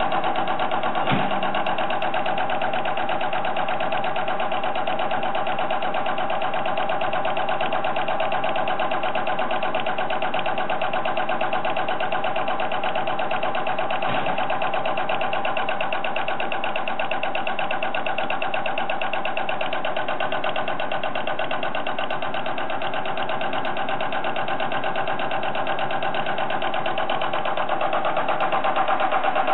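Diesel injector test bench running an electronic unit injector in its cam box: a steady, fast, even mechanical clatter. A single sharp click sounds about a second in, and the clatter grows slightly louder near the end.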